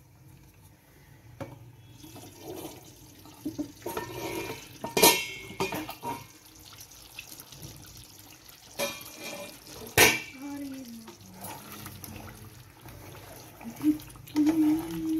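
A steel pot lid knocking twice against a kadhai as it is lifted off, then a wooden spatula stirring chicken pieces through thick, wet curry gravy.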